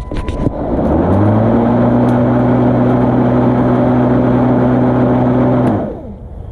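A few clicks, then the electric motor and blade of a Greenworks 40-volt cordless lawn mower spin up about a second in. The mower runs at a steady speed for about four and a half seconds, then is switched off near the end and winds down.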